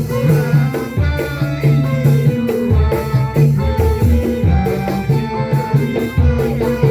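Music with drums and percussion over held instrument notes and a strong bass line, at a steady beat.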